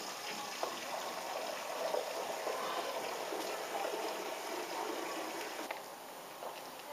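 A flock of pigeons pecking grain off concrete: a dense, irregular patter of small pecks and shuffling feet. Under it runs a steady high hiss that cuts off suddenly near the end.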